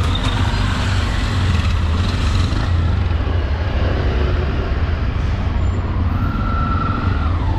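Road traffic noise: a steady low rumble of passing vehicles, with a brief thin whine about six seconds in.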